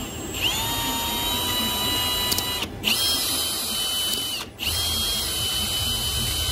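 Cordless drill motor whining as it spins a fuel injector held in its chuck, used as a makeshift lathe to widen the injector's o-ring groove with a drill bit held against it. The drill spins up about half a second in and runs in three spells, stopping briefly twice.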